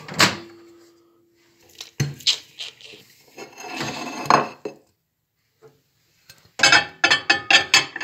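Ceramic dinner plate handled on a kitchen counter: a knock at the start, then scraping and clinking as it is moved. Near the end comes a quick run of loud clicks and clatters as the microwave is opened and the plate goes in.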